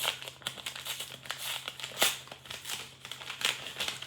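Packaging being unwrapped by hand, crinkling and crackling in irregular bursts with a sharper crackle about two seconds in.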